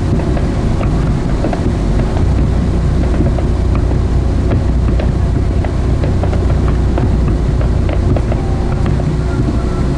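Steady low rumble of a boat, heard from on board, with wind buffeting the microphone and scattered faint clicks.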